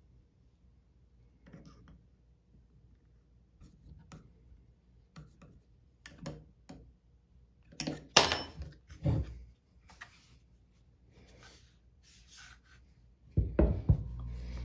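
Scattered light clicks and knocks of hands working a long hex key and fitting a plastic pistol grip onto a crossbow stock. There is a louder clatter about eight seconds in, and a knock near the end, after which a steady low hum sets in.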